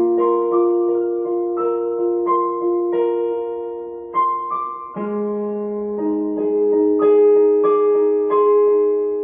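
Background piano music: slow, gentle notes and chords struck about once a second, each ringing out.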